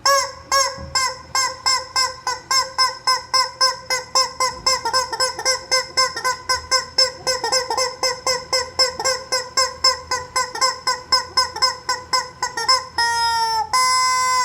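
Squeaky rubber chicken toy squawking in a rapid run of short honks, about three or four a second. Near the end come two long drawn-out squawks.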